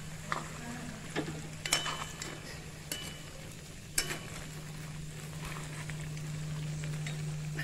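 Mutton and ground spices sizzling in oil in a black kadai while a steel spoon stirs them, scraping and clinking against the pan several times in the first four seconds; the spices are being fried in with the meat.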